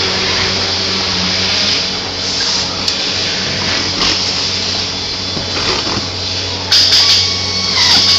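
Steady factory-floor machinery noise: a low hum under a constant hiss, with a louder, sharper burst of hiss about seven seconds in.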